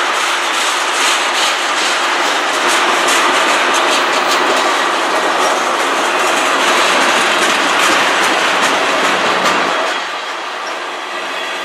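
Loaded freight train tank cars rolling past close by: the steady rumble and hiss of steel wheels on the rails, with clicks as the wheels cross rail joints. The sound drops a little in level and loses some of its low rumble about ten seconds in.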